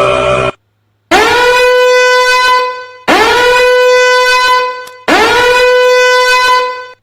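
A horn blown three times, each blast about two seconds long, scooping up in pitch and then holding a steady, brassy tone, as a meme sound effect. Just before it, a different sustained pitched sound cuts off about half a second in.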